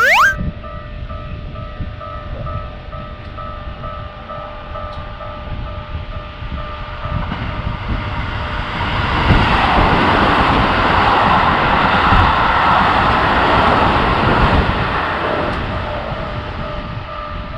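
Japanese railroad crossing warning bell ringing in a fast, even repeating beat while a train passes; the train's rumble builds from about halfway through, is loudest for several seconds, then eases off near the end. A short rising whistle-like sweep sounds right at the start.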